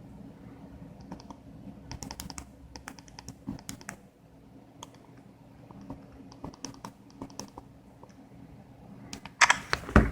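iPhone 5S home button pressed over and over, giving short, sharp clicks at an uneven pace, some in quick pairs. Near the end a louder, denser run of clicks.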